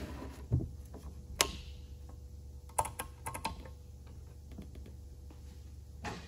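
Small clicks and knocks as the plastic-stapler unit and its cable are handled on a workbench. There is a dull knock about half a second in, a sharp click near one and a half seconds, then a quick run of small clicks around three seconds, over a low steady hum.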